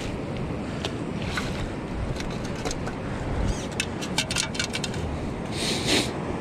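Wind buffeting the microphone over washing shallow surf, with a perforated stainless sand scoop being lifted out of the water: a quick run of small clicks about four seconds in as its load rattles, then a short rustle as a hand sorts through the sand in the basket.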